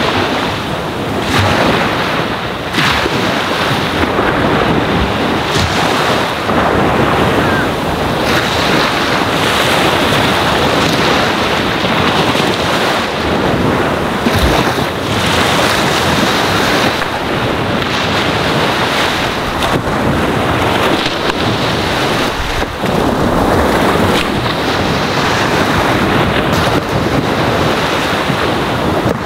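Ocean waves washing onto a sandy shore: a continuous, even rush of surf that swells and eases slightly.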